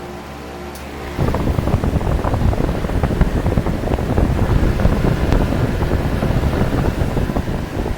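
Wind gusting and buffeting on the microphone: a sudden loud, rough, low rushing that starts about a second in and covers a heat pump's steady hum, easing off near the end.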